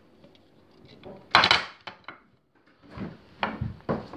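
Green gas can being pressed onto an airsoft gas-blowback pistol magazine and knocked against a glass tabletop while filling it. A short, loud burst comes about a second in, then a run of sharp knocks and clicks near the end.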